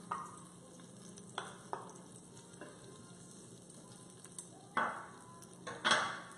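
Hot garlic-infused olive oil and roasted garlic sizzling and popping as they are poured and scraped into a preheated Instant Pot, with scattered taps of a spoon against the pans. Two louder bursts of sizzle and scraping come near the end.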